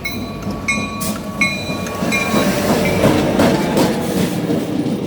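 Commuter train rolling along the station platform, its wheels clattering over the rail joints with a rising rumble. A bell dings about every 0.7 s during the first two seconds.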